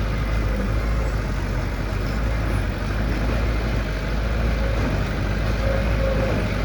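Heavy diesel construction machinery running steadily, a constant low engine rumble without breaks or impacts.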